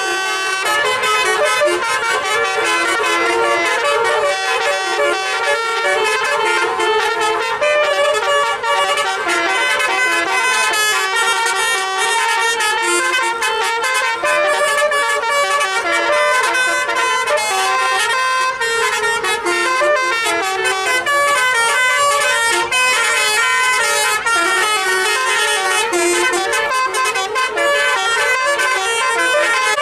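A tour bus's 'telolet' musical horn, a multi-tone air horn, playing a melody of stepping notes without a break.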